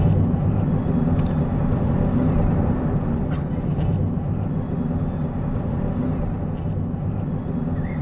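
Steady low rumble of road traffic or a moving vehicle, with a few faint clicks.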